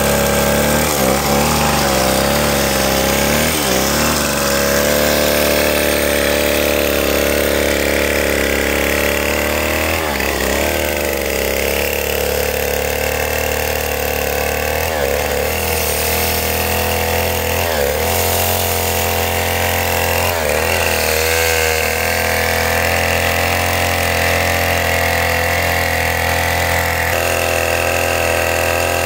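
Stihl two-stroke chainsaw running at high revs while ripping a log lengthwise along the grain. The engine note dips briefly and recovers several times as the revs change.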